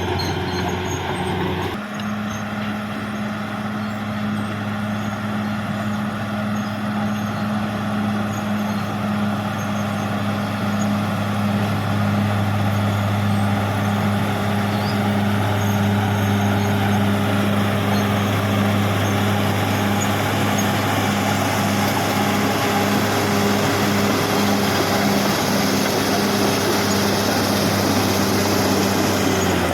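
Caterpillar D6R XL bulldozer's diesel engine running steadily under load, with a sudden change in its note about two seconds in and a little louder from about twelve seconds on.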